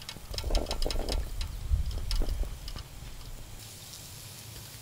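Food-prep handling: several clicks and soft knocks as ham is laid onto croffle dough, over a steady low rumble. A faint hiss comes in near the end.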